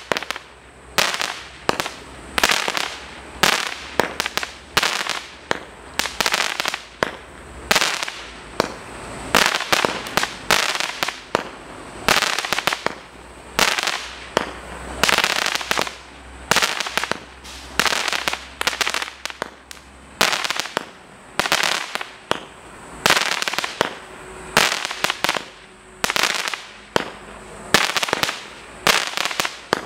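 MM2133 Ammo Box firework going off in a steady series of sharp bangs, about one a second, each trailing off briefly.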